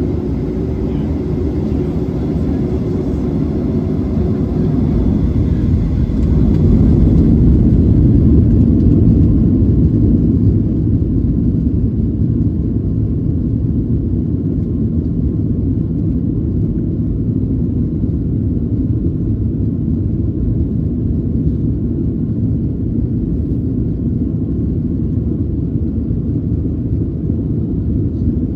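Boeing 737-700's CFM56 engines and wheels heard from inside the cabin during the takeoff roll: a steady, loud low roar and rumble, growing louder about six seconds in and settling back slightly after about ten seconds.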